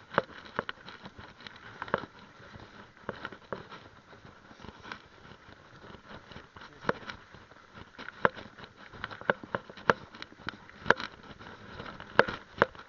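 Mountain bike rattling and knocking as it rolls over a rough dirt trail: irregular sharp clacks, a few louder ones near the end, over a steady rolling noise.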